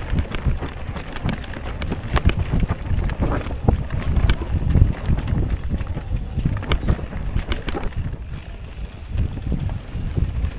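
Mountain bike ridden fast down a wet enduro trail, clattering over rough ground in a constant run of irregular knocks over a deep rumble.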